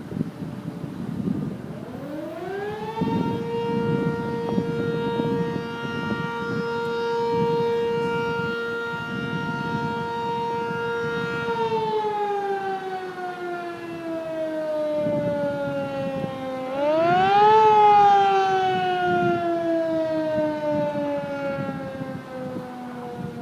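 Sentry 15V1T outdoor warning siren winding up to a steady wail and holding it for about eight seconds. It then winds down, picks up again briefly in a short rising whoop, and falls away once more as the rotor coasts down.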